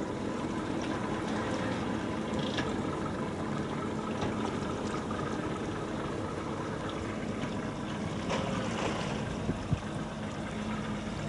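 Boat engine idling at low speed, a steady hum, with water sounds around the hull.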